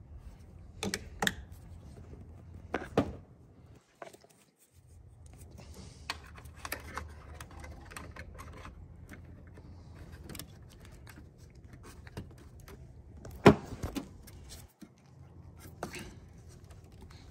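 Small plastic clicks and taps of blade fuses and a fuse extender being pulled from and pushed into a truck's under-hood fuse box, with one sharp knock standing out about thirteen seconds in. A low steady rumble runs underneath.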